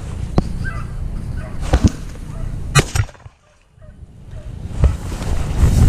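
A few sharp snaps and knocks over a low outdoor rumble, with a brief drop to near silence about three and a half seconds in.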